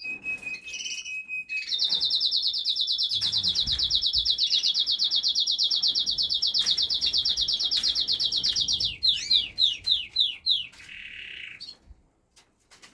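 Canary singing: a long, fast trill of rapidly repeated high notes lasting about seven seconds, then a few quick falling notes and a short buzzy note.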